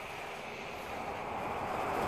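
A vehicle approaching on the highway, its steady rushing noise growing louder.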